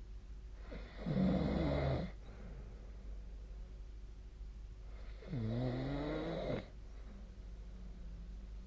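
A sleeping person snoring: two snores, each about a second and a half long and about four seconds apart, their pitch dipping and then rising.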